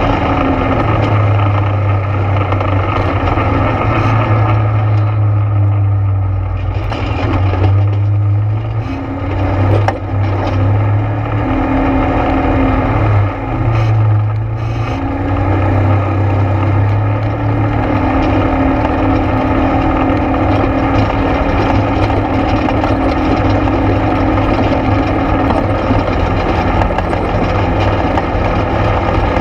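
ATV engine running steadily on a trail ride, easing off briefly a few times near the middle.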